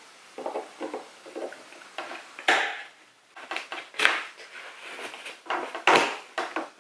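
Irregular scraping and rustling with a few sharp clicks from hands and a small tool working small nails out of an old tailor's mannequin.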